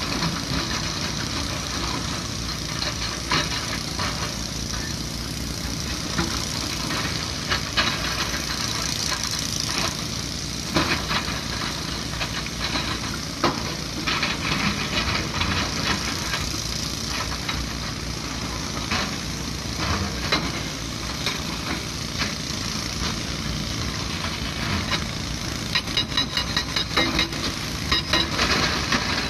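Heavy excavator diesel engines running steadily, with occasional sharp clunks of rock. Near the end a hydraulic rock breaker on a Kobelco SK220 excavator hammers rapidly into the stone.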